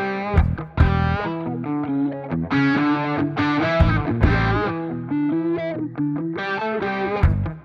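Background music: distorted electric guitar with effects playing a rock backing track, with drum hits.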